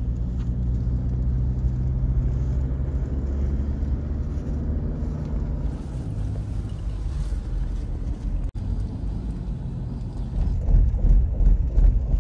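Road noise inside a moving car: a steady low hum of engine and tyres. It cuts out for a moment about two-thirds of the way through, then comes back rougher and louder near the end.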